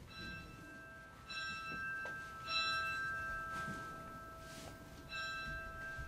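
Priory bell struck several times, each stroke ringing on into the next. It is the bell that calls the community to prayer, rung as a five-minute warning before the office begins.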